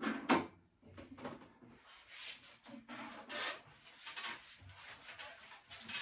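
Handling noise from a Festool table saw and its folding stand being turned upright: a sharp knock just after the start, then irregular scraping, rubbing and small clunks of the metal frame and legs.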